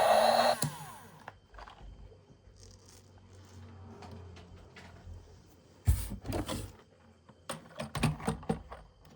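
Background music stops half a second in, then light clicks and knocks of small plastic toys and packaging being handled, with one sharp knock about six seconds in and a quick run of clicks near the end.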